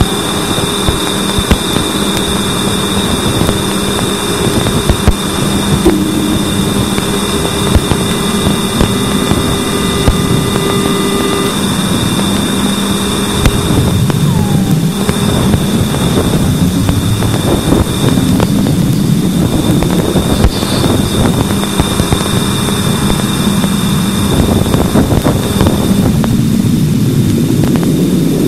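Voyager 2's Plasma Wave Subsystem (PWS) recordings played as sound: a dense crackling static with steady tones running through it, one high and others low like a hum. A few of the tones drop out a little before halfway, and a short falling whistle comes soon after.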